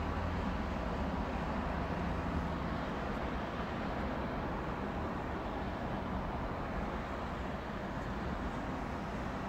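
Steady low rumble of road traffic on snow-covered streets, without a break.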